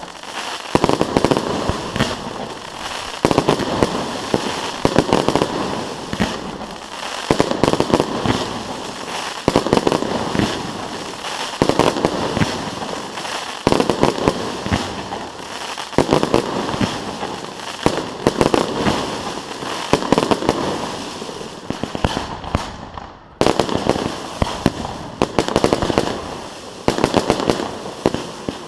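Fireworks going off in a dense, continuous barrage of crackles and bangs, with heavier booming bursts about every two seconds.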